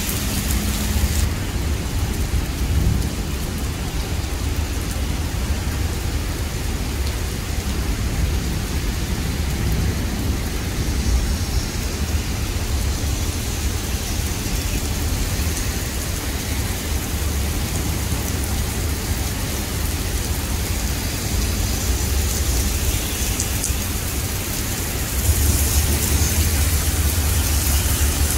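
Heavy rain falling on a wet paved road, drops splashing on the surface in a steady hiss with a low rumble underneath; it grows louder near the end.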